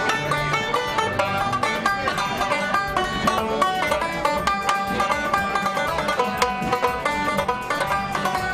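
Resonator banjo picked in a steady stream of quick bluegrass notes, with an acoustic guitar backing it.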